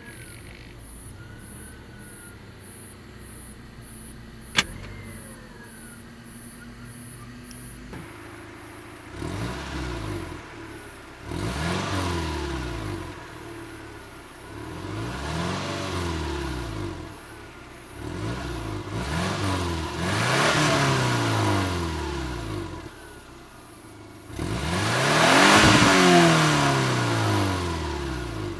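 A 1998 Subaru Legacy 2.0 flat-four boxer engine idles steadily, with one sharp click about four and a half seconds in. Then it is revved from idle about six times, its pitch rising and falling with each blip, and the last rev is the longest and loudest.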